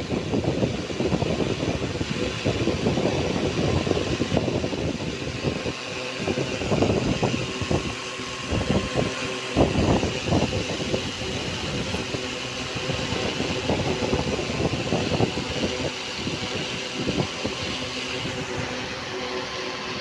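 Homemade table fan driven by a 775 DC motor, running at high speed on 12 volts: a steady motor hum and whine under a rush of moving air that swells and dips unevenly.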